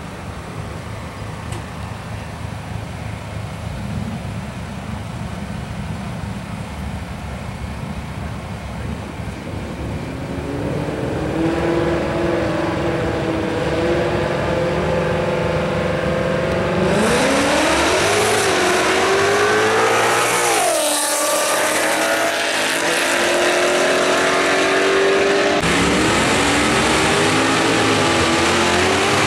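Drag-racing cars' engines rumbling at the start line, then from about halfway revving hard. A loud rush comes in, the engine pitch climbs, drops sharply and climbs again, and near the end the sound changes abruptly.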